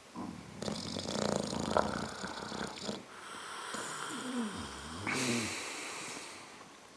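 Snoring: two long, rattling snores, the second with a wavering buzzy tone.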